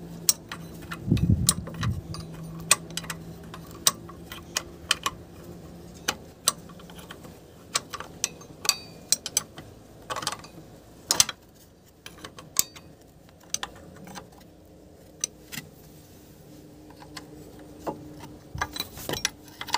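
A steel ring spanner on engine bolts, clinking in sharp, irregular metal clicks as it is fitted, turned and repositioned to tighten them.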